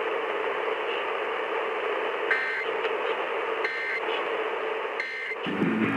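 Three short Emergency Alert System end-of-message data bursts, a little over a second apart, over the hiss and static of a weak, distant AM radio station. Guitar music comes in just before the end.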